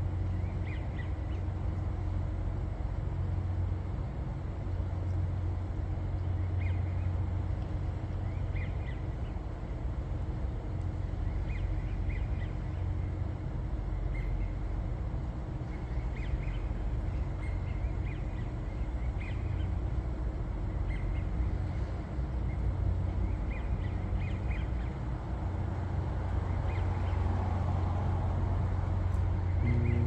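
Short, high bird calls repeating every second or two over a steady low rumble.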